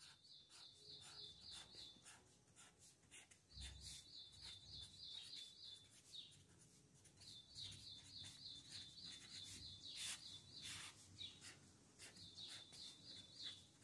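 Faint scratching and tapping of a pen on paper as a row of boxes and index numbers is drawn. In the background a bird gives a short, high trill, repeated about every three to four seconds.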